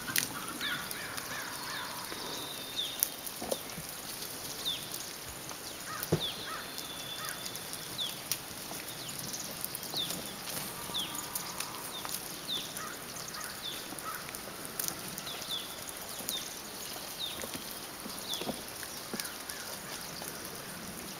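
Outdoor farmyard ambience: short, high, falling bird chirps repeat roughly once a second, with occasional soft, low chicken clucking. A single faint knock comes about six seconds in.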